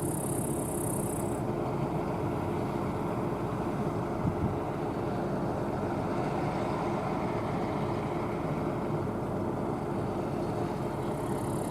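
Rostselmash NIVA SK-5 M1 combine harvester running with a constant, even drone and a steady hum. A high hiss cuts off about a second in and comes back near the end.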